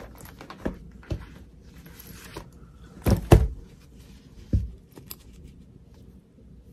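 Handling sounds of a planner and a fabric zipper pouch on a wooden tabletop: a few soft knocks, the loudest pair close together about three seconds in, over light rustling as the pouch is slid off the planner's elastic band.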